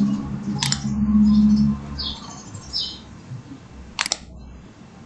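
Computer mouse clicks: one sharp click under a second in and a quick double click about four seconds in, over a low hum that is loudest in the first two seconds.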